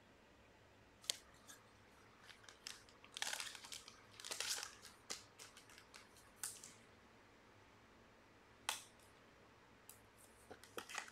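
Trading cards being handled: scattered light clicks and short rustles, the longest about three and four and a half seconds in.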